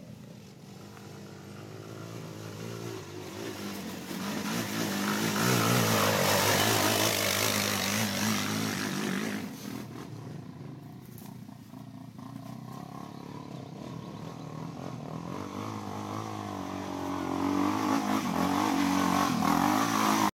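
Off-road quad (ATV) engines revving as they come up the trail. The first grows to its loudest about five to nine seconds in and drops away sharply near ten seconds. Then a second, a sport quad, grows steadily louder as it climbs near and is loudest at the end.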